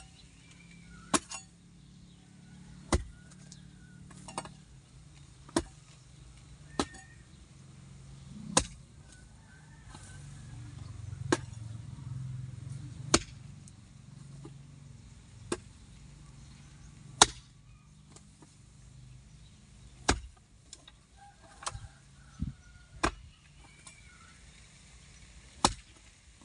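Garden hoe chopping into dry, grassy soil over and over, a sharp strike every one to two seconds at an uneven pace, as ground is broken up for planting.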